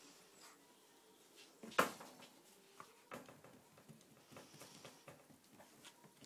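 Six-week-old puppies scuffling and play-wrestling, with faint scattered pattering and small clicks of paws and bodies, and one louder sharp sound about two seconds in.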